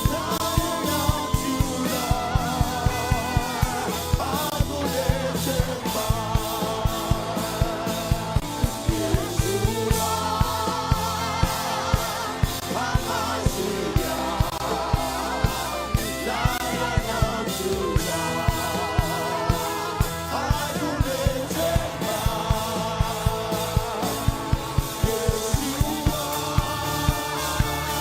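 Worship song: wavering sung vocals over sustained bass and a steady drum beat.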